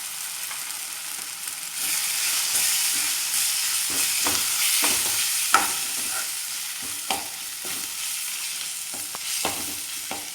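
Onion-tomato masala frying in oil in a kadai, sizzling steadily while a spoon stirs it, with sharp clinks and scrapes of the spoon against the pan. The sizzle gets louder about two seconds in.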